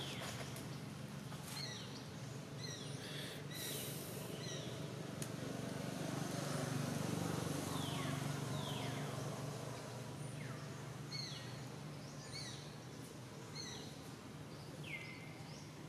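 Outdoor ambience: scattered bird chirps and a few short whistled calls that fall in pitch, over a steady low background hum.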